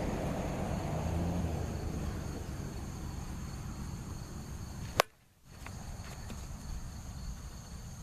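Plastic wiffle ball bat hitting a wiffle ball, a single sharp crack about five seconds in. Crickets chirr steadily in the background.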